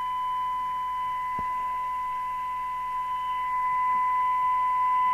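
A PNI HP55 CB radio on receive plays a steady, high-pitched continuous test tone through its speaker. The tone is the demodulated audio of the test signal being fed to it on 27.405 MHz FM.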